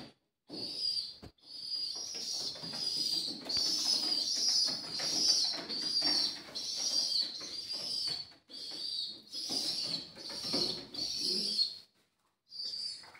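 Young pigeons begging for food: a run of high-pitched squealing cries, about one a second, with wings fluttering beneath, stopping shortly before the end.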